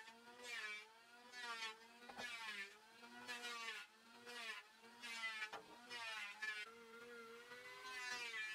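Background music: a melodic instrument playing held notes with a wavering vibrato, with a couple of sharp knocks.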